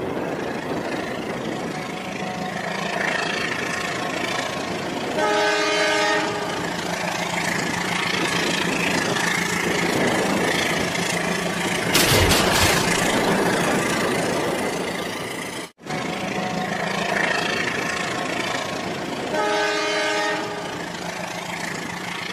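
Battery-powered toy trains running on plastic track with a steady motor hum. A train horn sounds twice, about five seconds in and again near the end, and a louder rattling stretch comes about halfway through.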